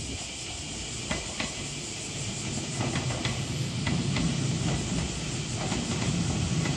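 Nishitetsu 8000 series electric train pulling into the station: a rumble that grows louder as it nears, with scattered wheel clicks over the rail joints and a steady hiss.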